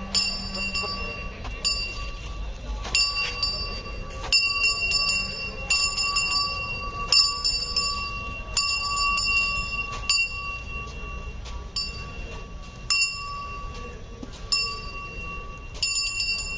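A bell hanging on a walking elephant, ringing with its stride: the same clear note is struck again at uneven intervals, roughly once a second, each strike ringing on briefly.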